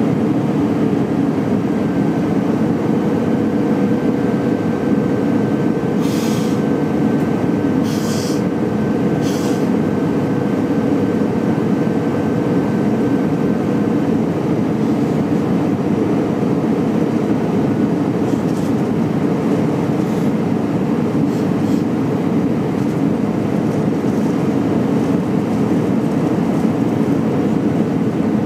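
Cabin noise inside an Airbus A319-112 descending on approach: a steady roar of airflow and its CFM56 engines, with a faint steady whine that fades out about halfway through. Three short hisses come close together about a quarter of the way in.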